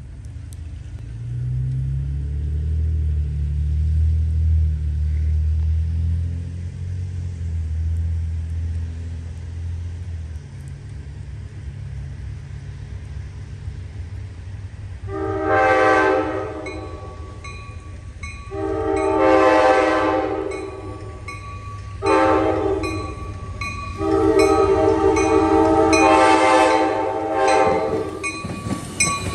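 Amtrak locomotive air horn sounding the grade-crossing signal as the train approaches: two long blasts, a short one, then a final long one, each a chord of several notes. Before it, a low rumble for about the first ten seconds.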